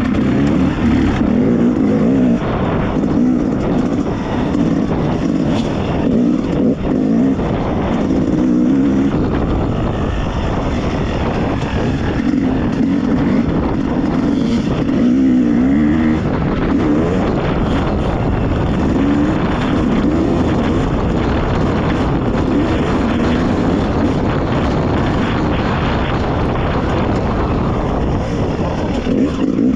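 Dirt bike engine ridden along a trail, its pitch rising and falling continually as the throttle is opened and rolled off.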